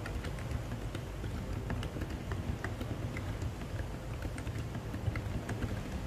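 Continuous fast typing on an NJ68 mechanical keyboard with Boba U4 silent tactile switches and DSA keycaps: a dense run of soft, muted keystrokes.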